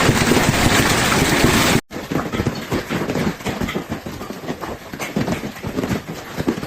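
Loud, steady rush of storm wind and rain that cuts off abruptly about two seconds in, giving way to quieter, irregular clattering and knocking.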